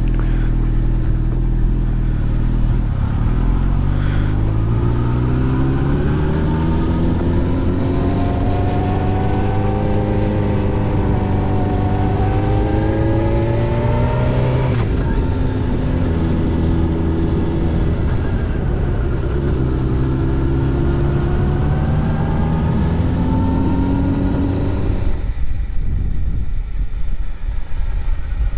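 Suzuki GSX-R 750 K4's inline-four engine pulling away and accelerating, its pitch rising, dropping sharply at a gear change about halfway, then rising again. About three seconds before the end the engine note falls away as the bike slows.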